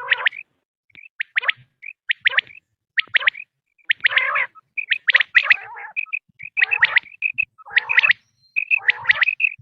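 Recorded quail calls played as a hunting lure: repeated short phrases of quick, sharp notes, roughly one a second, with short clear whistled notes between them.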